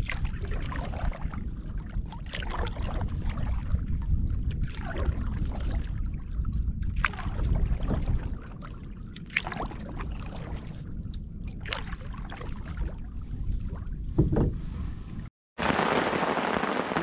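Wind rumbling on the microphone over open water, with a canoe paddle stroke splashing about every two and a half seconds. Near the end the sound cuts to steady rain falling on a tarp overhead.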